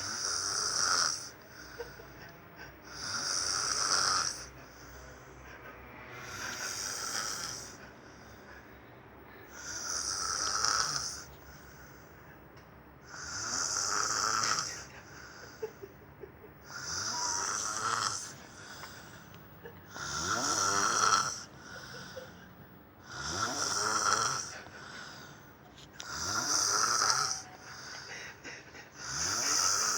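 Snoring in a steady rhythm, about one snore every three seconds, some ten in all.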